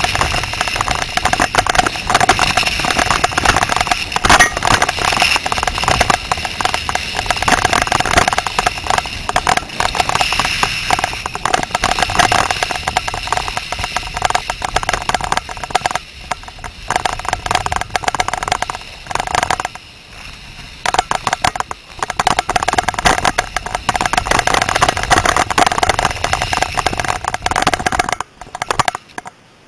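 Wind buffeting the microphone and snowblades scraping over snow during a downhill run: a loud, dense crackling rush with a steady high whine under it, easing off for a moment about two-thirds through and falling away just before the end.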